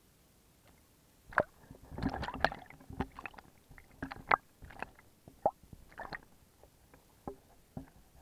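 Catfish crowding an underwater camera housing, bumping and nudging it in irregular knocks and clicks. The knocks come in a dense flurry about two seconds in, then thin to scattered single knocks.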